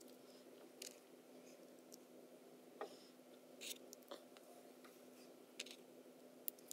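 Faint, sparse clicks and taps of small plastic Lego pieces being handled and pressed together, about six in all, over a faint steady hum.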